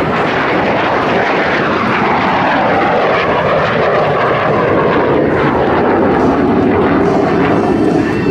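MiG-17's Klimov VK-1 turbojet engine running loudly as the jet passes low and climbs away, its pitch falling as it goes by about two seconds in.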